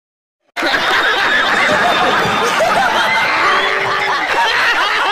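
Half a second of silence, then a crowd of people laughing loudly together, many voices overlapping.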